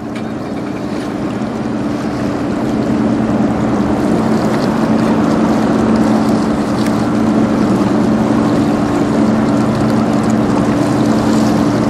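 Steady low hum of the bulk carrier Frontenac's engines and machinery as the ship passes, growing a little louder over the first few seconds and then holding steady.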